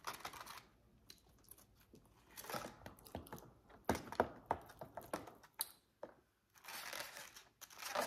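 Eating sounds: a clear plastic fork clicking and scraping in a foam takeout box as French fries are speared and dipped in ketchup and ranch, with chewing. A cluster of sharp clicks comes in the middle.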